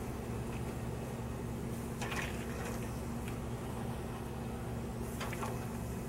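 Steady low machine hum, with a brief hissing or rustling noise about two seconds in and another near the end.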